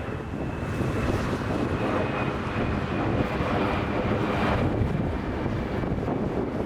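Gusty storm wind buffeting the microphone over the noise of a jet airliner's engines, with a thin high engine whine that slowly falls in pitch.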